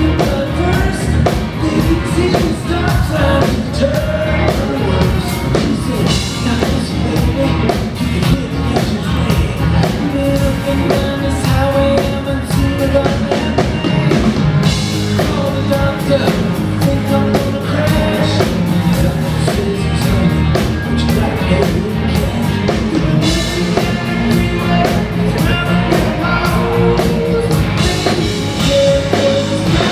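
Live rock band playing: drum kit, electric guitar and keyboards, with a lead singer singing over them.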